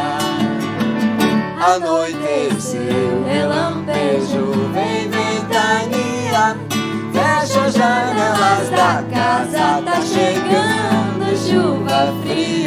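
Live music: acoustic guitar and piano playing a song, with voices singing a melody without clear words.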